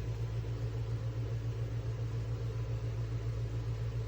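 Small USB clip fan running steadily on the highest of its three speeds: a constant low hum with an airy whir.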